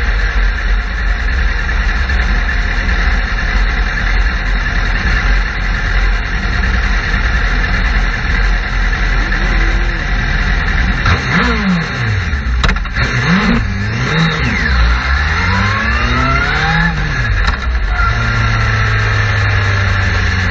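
Sport bike engines, the onboard Suzuki GSX-R's among them, running steadily, then revved up and down several times in quick succession about halfway through, settling into a steady drone near the end.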